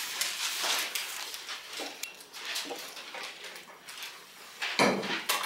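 Rustling and shuffling of paper sheets and small handling noises at classroom desks, as students look through their homework. There is a louder bump or shuffle near the end.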